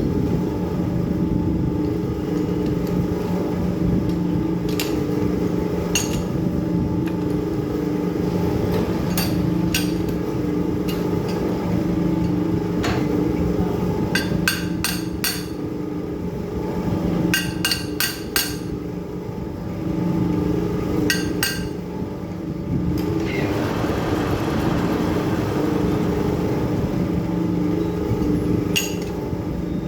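Metal lathe running with a steady machine hum, with sharp metallic clinks and taps every few seconds, some in quick clusters, and a brief hissing stretch about two thirds of the way through.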